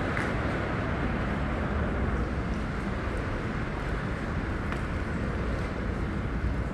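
Steady low rumble of outdoor city noise, with a few faint ticks over it.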